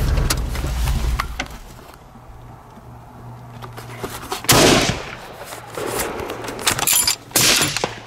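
A single rifle shot from a 7mm Remington Magnum fitted with a muzzle brake, about halfway through, with a short tail after it. Underneath, the truck's engine hums low, loudest in the first second or so. A few smaller sharp knocks follow near the end.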